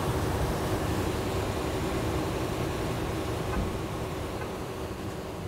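Steady vehicle and traffic noise with a low rumble and a faint steady hum, slowly fading out toward the end.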